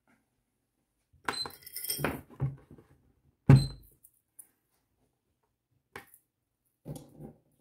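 Small metal objects clinking and being set down on a hard surface as jewelry and measuring tools are handled. A run of light, ringing clinks comes about a second in, a louder knock follows about three and a half seconds in, and two softer knocks come near the end.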